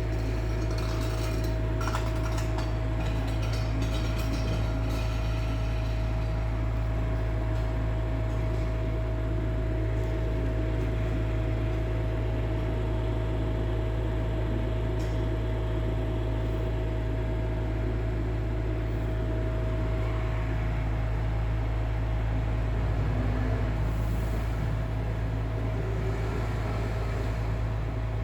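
Steady low mechanical hum, like a motor running, with a thin steady tone above it that fades out about twenty seconds in. A few faint clicks near the start.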